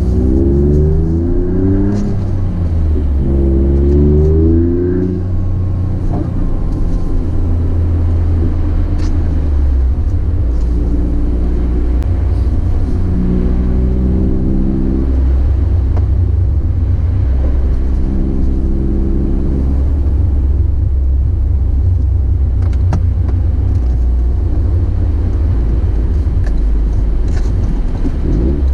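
Toyota GR Corolla's turbocharged 1.6-litre three-cylinder running through its FI aftermarket exhaust with a heavy low rumble, its pitch climbing a few times in the first five seconds and then holding steadier.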